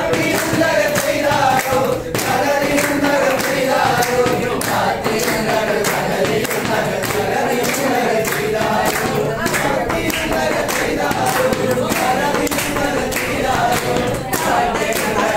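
A roomful of people singing a Malayalam song together in unison, led by a man at the front, with scattered hand claps.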